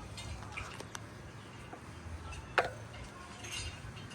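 Hammer striking metal while trying to knock bearings out: one sharp, loud ringing strike about two and a half seconds in and another near the end, over a steady low hum.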